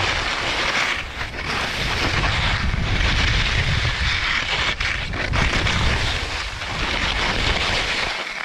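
Skis scraping and sliding over chopped-up snow through a series of turns on a steep slope, the noise swelling and dipping, with heavy wind rumbling on the microphone.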